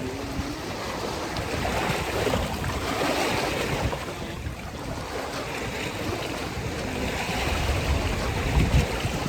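Wind gusting over the microphone: a steady rushing noise with a heavy low rumble.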